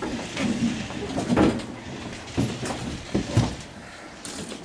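Scattered knocks and shuffling of people settling at classroom desks and chairs, with a few murmured words.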